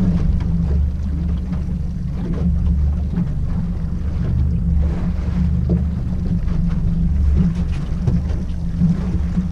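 Small outboard motor running steadily at low trolling speed, a constant low drone, with wind and water noise over it.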